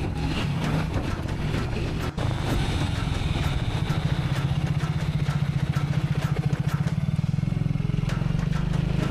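Motorcycle engine running steadily under way, a low pulsing drone, with scattered sharp clicks over it and a brief dropout about two seconds in.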